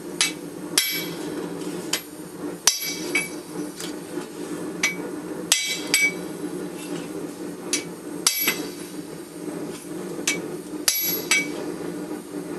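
Hammer blows on hot steel against an anvil, forging a wakizashi blade preform: sharp, ringing strikes at uneven intervals, roughly one every second. A steady low rush runs underneath.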